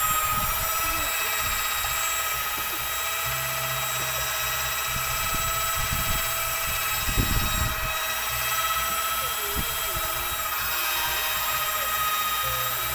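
Corded electric drill with a mixing rod running at a steady speed, stirring a bucket of liquid dishwashing soap: a constant motor whine.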